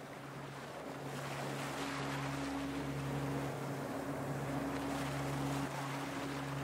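Ocean surf and wind: a steady rushing wash of waves. Under it runs a low steady droning tone that breaks off briefly a few times.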